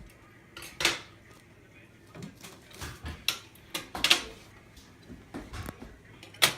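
Scattered knocks and clicks of hard kitchen things being handled around a countertop panini press, the loudest about a second in, around four seconds in and just before the end.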